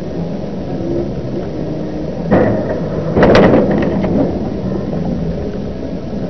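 Steady car engine and road rumble, broken a little over two seconds in by a sudden loud thump. About a second later comes a burst of several sharp knocks and crunches: the sound of a car collision.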